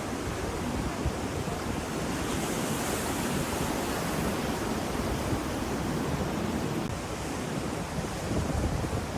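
Ocean surf washing on the shore in a steady rush, with a wave swelling and hissing in from about two seconds in, over a low rumble of wind on the microphone.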